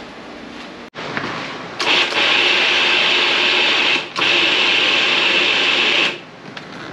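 Food processor running, its blade pureeing basil, pine nuts, garlic, cheese and olive oil into pesto. It runs loud in two stretches with a brief break about four seconds in, and stops about six seconds in.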